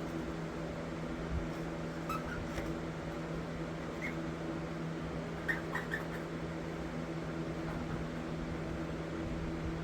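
Steady machine hum at one fixed pitch, like a running fan or motor, with a few faint light clicks over it.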